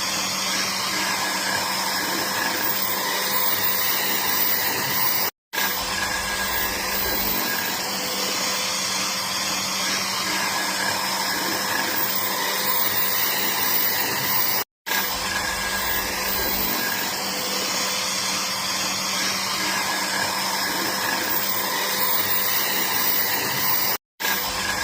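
Electric power tool motor running steadily with a constant whirring hum. It cuts out abruptly for a split second three times, about five seconds in, just before fifteen seconds, and near the end.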